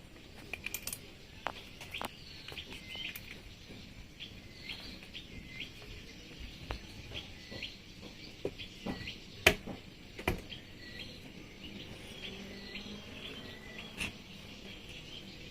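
A small bird chirping over and over in short hooked notes, with a few sharp clicks and knocks, the loudest about nine and a half seconds in.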